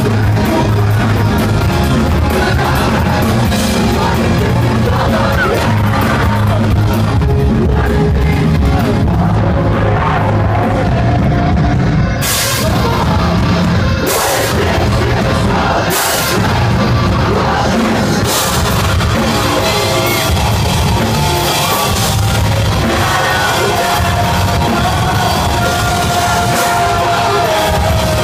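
Metalcore band playing live: distorted guitars, bass and drums under a sung and yelled lead vocal. A few cymbal crashes land about two seconds apart partway through. The whole mix is loud and harsh, as picked up by a phone's microphone in the crowd.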